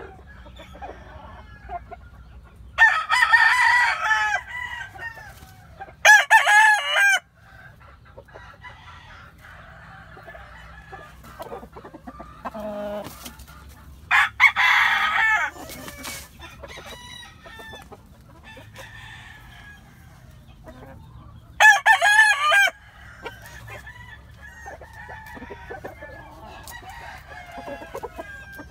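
Gamefowl roosters crowing four times, each crow loud and about a second long, with softer clucking from the hens in between.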